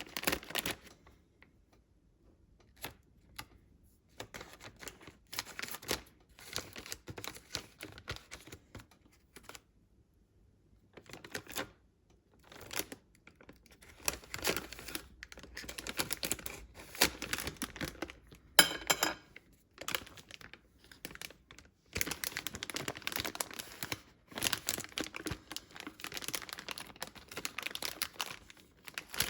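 Packaging being handled, crinkling and tearing in irregular bursts with small clicks and quiet gaps between. A brief pitched sound comes about two-thirds of the way through.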